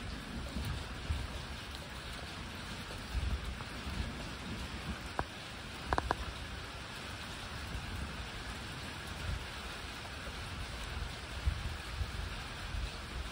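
Steady rain falling during a thunderstorm, with uneven low rumbles and a couple of short sharp clicks about halfway through.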